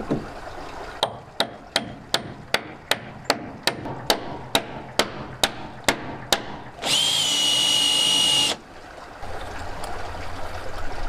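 Brass hammer tapping a copper pipe to drive a brass sleeve back into a sailboat's stern tube: about fourteen sharp taps, roughly two and a half a second. About seven seconds in, a power drill runs with a steady high whine for about a second and a half.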